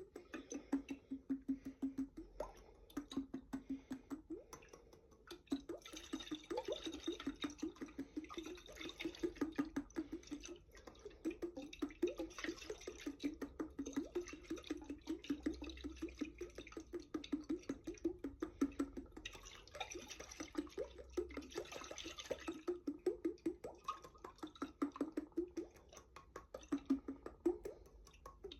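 Glass jar partly filled with water, tapped quickly over and over, each tap giving a short low ring, with stretches of water swishing inside it.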